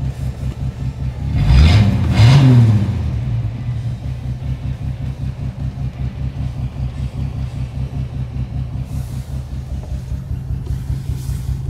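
1967 Plymouth Valiant's Chrysler 225 slant-six engine idling with a steady pulsing rumble. It is blipped twice in quick succession about a second and a half in, the pitch rising briefly, then it settles back to idle.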